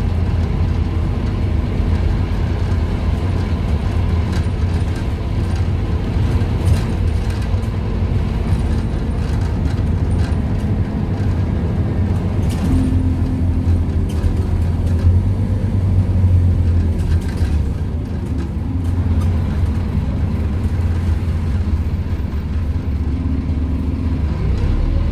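On-board sound of a Scania N230UD OmniCity bus under way: its Scania DC9 five-cylinder diesel runs with a steady low drone, with road noise and interior rattles over it.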